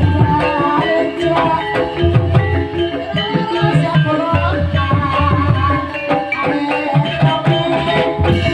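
Banyumasan gamelan music played live: tuned struck notes ringing at shifting pitches over kendang hand drums keeping a steady beat.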